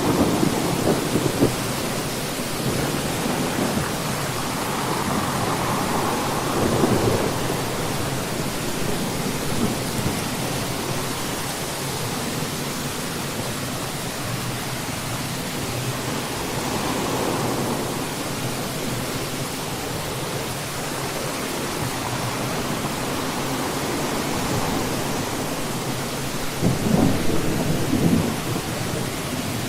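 Rain and thunder ambience: a steady rushing hiss with low rumbles that swell and fade a few times.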